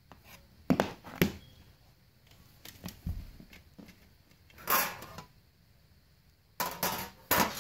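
Handling noise from thin sheets out of a disassembled tablet screen: a few sharp clicks and taps, a brief scrape about five seconds in, and a cluster of clicks near the end.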